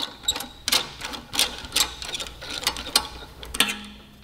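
Ratchet wrench clicking in uneven strokes, about three a second, as the fuel tank's rear mounting bolts are backed out.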